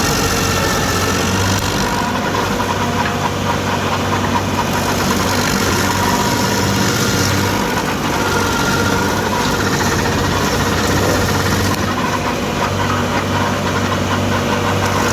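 Stump grinder running, its engine going steadily with a dense, even mechanical noise.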